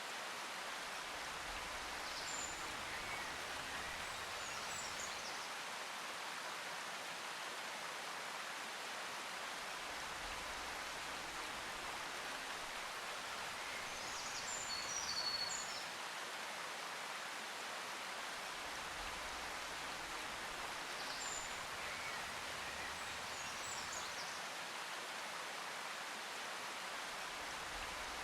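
Steady hiss of running water or rain, with a few brief, faint, high bird chirps scattered through it, a small cluster of them about fifteen seconds in.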